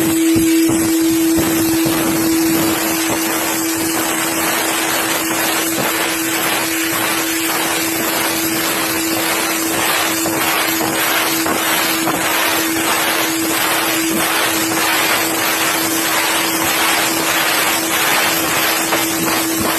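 Compressed-air blast gun hissing steadily as it blasts carbon deposits off engine piston crowns, over a constant low hum.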